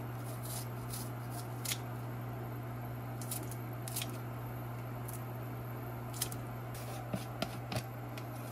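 Kitchen scissors snipping a green onion stalk into pieces, with a sharp snip every second or so, over a steady low hum. Near the end come three quick clicks in a row.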